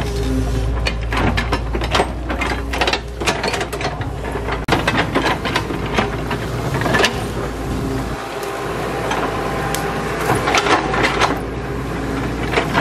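Doosan DX140W wheeled excavator's diesel engine running steadily while its bucket digs into earth and brush, with many sharp knocks and clanks throughout.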